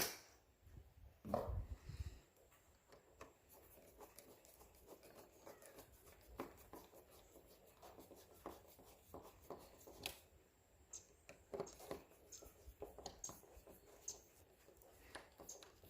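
Deadbolt hardware being fitted into a door by hand: faint small metal clicks and scraping throughout, with a dull thump about a second and a half in.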